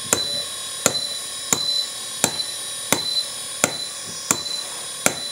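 Hydraulic-motor-driven breaker hammer of a 1/14 RC excavator punching its chisel, eight sharp knocks evenly spaced about 0.7 seconds apart, over the steady high whine of the small hydraulic pump and motor running.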